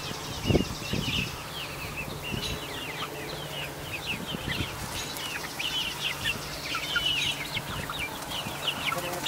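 A flock of young chickens peeping and chirping in many short, quick calls while they chase one bird that has a worm, with some wing flapping. A low steady hum runs underneath, and there is a brief thump about half a second in.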